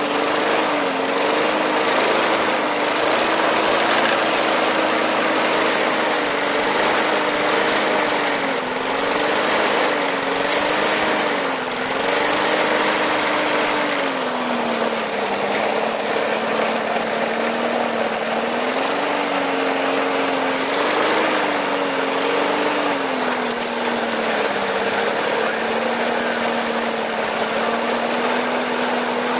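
Briggs & Stratton lawn mower engine running, its speed repeatedly rising and falling, then settling to a steady, slightly lower speed near the end.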